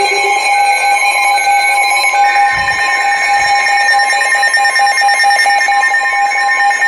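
Weather radio receivers sounding their alert alarms together for a new special marine warning: several steady electronic tones held at once, with a short beep repeating about twice a second at first and one tone dropping to a lower pitch about two seconds in.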